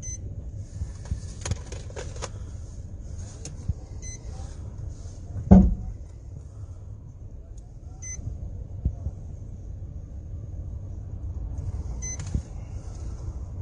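A single heavy thud about five and a half seconds in as something strikes the police cruiser's already cracked windshield, heard from inside the car. A few lighter knocks come in the first couple of seconds, over a low steady rumble.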